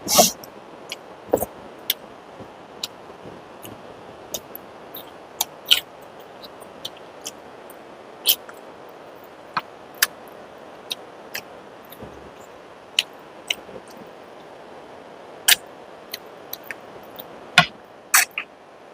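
Close-miked eating: irregular sharp mouth clicks and smacks of chewing, roughly one or two a second, over a steady low hiss.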